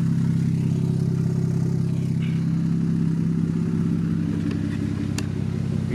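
BMW E90 3 Series sedan's inline-six engine idling steadily, heard at its dual exhaust tips.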